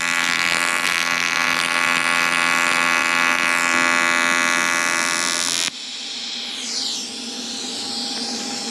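TIG welding arc on aluminium plate, a loud steady AC buzz as a bead is laid with a filler rod. It cuts off suddenly about two-thirds of the way through, leaving a fainter steady hum.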